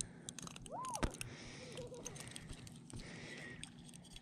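Scattered small clicks and knocks of a hook-removal tool and hands working a hook out of a trout's mouth. About a second in there is a short squeak that rises and then drops sharply.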